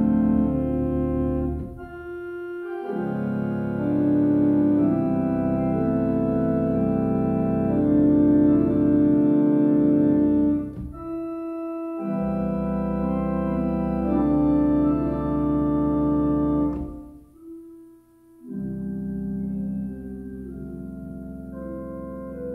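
Three-manual virtual pipe organ playing an improvisation on a hymn tune in sustained, held chords, with short breaks between phrases. About seventeen seconds in the sound drops away for a moment, then resumes more softly.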